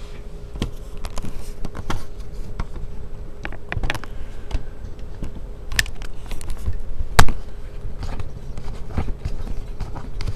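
Handling noise from a camera being picked up and set in place: scattered clicks and knocks, one sharp, loud knock about seven seconds in, over a faint steady hum.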